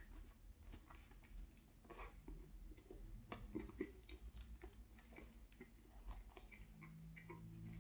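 Faint close chewing of a chicken and cheese sub sandwich, with scattered small wet mouth clicks. Near the end a steady low tone fades in and grows louder.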